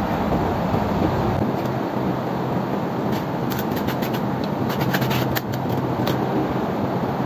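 Metal spoon scraping and tapping in a fine wire-mesh strainer of wet soybean pulp, a cluster of light scrapes and ticks about three to six seconds in. Under it runs a steady rumbling background noise.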